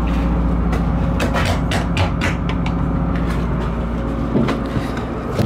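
A vehicle engine idles with a steady low hum, with a run of short knocks and footfalls over it as someone steps about and climbs out of the fire truck's compartment.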